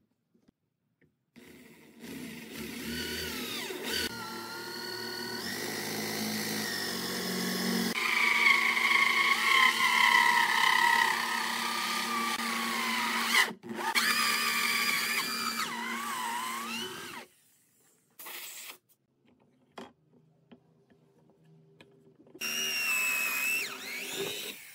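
Corded electric drill with a large hole saw cutting through a pine board: a motor whine with the teeth grinding into the wood, running for about sixteen seconds with one brief break, then a short burst and a few more seconds of cutting near the end.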